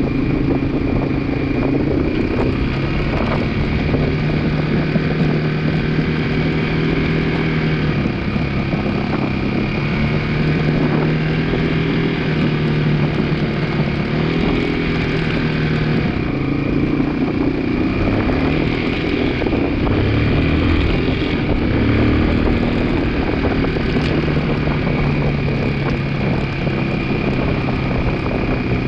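2002 Yamaha 225 motorcycle engine running steadily, its speed rising and falling slightly a few times.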